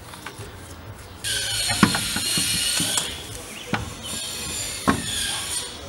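Metal ratcheting in two stretches with three sharp metallic knocks, as the alloy wheel is fitted back onto the hub and its new wheel studs.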